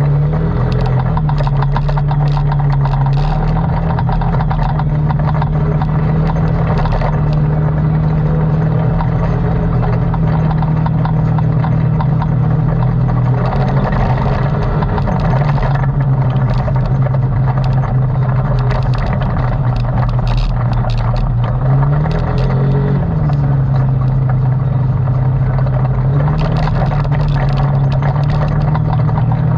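ATV engine running steadily under throttle while riding, its pitch dipping and rising briefly a few times, with scattered clatter over it.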